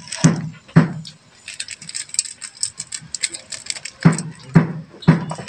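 Whole black peppercorns shaken from a small container into a pot, a crackly rattling patter. Regular low thumps come about twice a second near the start and again near the end.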